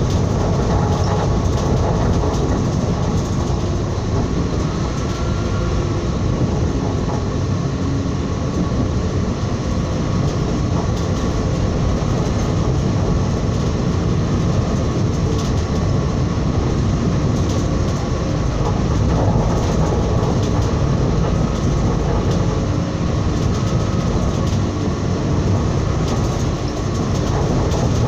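Train running steadily at speed, heard from on board: a continuous rumble of wheels on the rails, with some track clatter.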